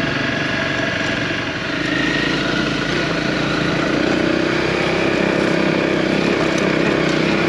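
Honda CRF250L single-cylinder engine running while the bike is ridden at low speed. The level dips briefly about a second and a half in, then holds steady.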